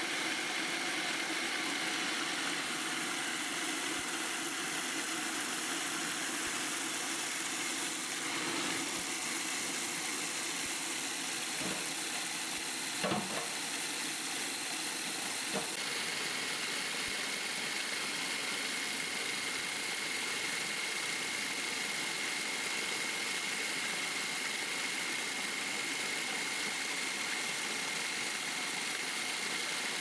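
Electric food processor running steadily, its blade churning a bowlful of threshed rice grains to mill them. A steady high whine rides over the whirring, with a few light knocks around the middle.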